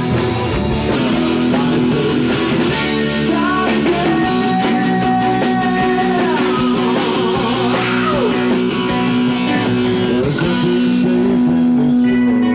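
Rock music led by electric guitar: held lead notes that bend and slide down in pitch, over steady drums and cymbals.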